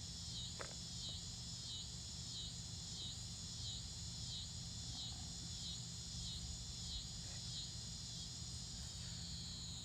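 Evening insect chorus: a steady high-pitched trill with a pulsing call over it that repeats about one and a half times a second.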